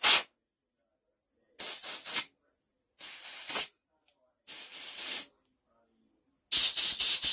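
Compressed-air blow gun firing four short hissing blasts through a small fuel tap, blowing out its partly clogged passages.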